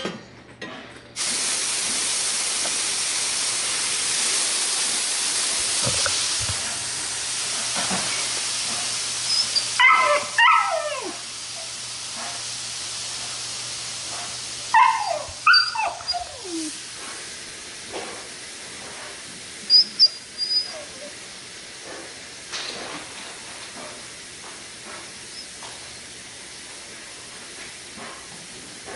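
Steam hissing from two hot carpet seaming irons pressed onto a wet towel, starting suddenly about a second in and slowly dying away. A dog yelps and whimpers over it in two runs of falling cries, then gives a couple of short high yips.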